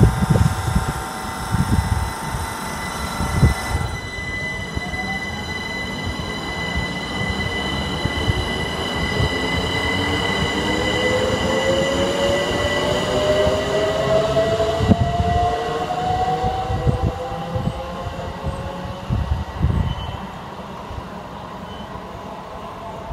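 Electric train pulling away, its traction motors giving a whine that rises steadily in pitch as it accelerates, over steady high-pitched electrical tones and the low rumble of the train on the track.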